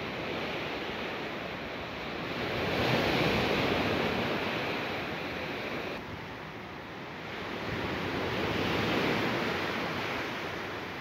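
Sea waves washing in, a steady hiss that swells and fades twice, about six seconds apart.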